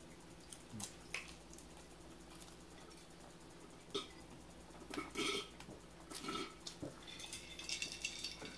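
Faint eating sounds from people eating breaded fish sticks: chewing and wet mouth noises with scattered small clicks, and a few short louder mouth sounds from about halfway in.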